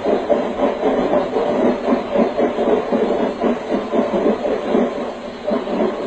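Continuous rattling rumble of moving vehicles on the road, fluttering rapidly without letting up.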